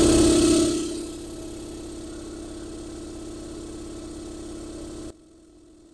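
Electric air compressor's piston pump running steadily under load as it starts filling the tank, a steady mechanical hum with a strong low tone. The level drops about a second in and again suddenly about five seconds in, leaving only a faint hum.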